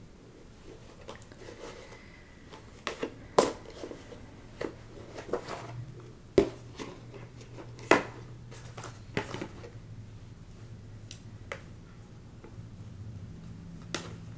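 Irregular light clicks and taps of embroidery floss and floss storage bins being handled and sorted, a dozen or so, with the sharpest about three to nine seconds in, over a faint low hum.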